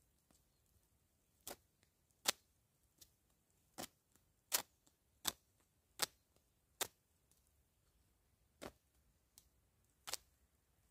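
Kitchen knife stabbing repeatedly into a stuffed plush bear held against a tree trunk: about ten sharp, short clicks, roughly one every three-quarters of a second, then two more spaced further apart near the end.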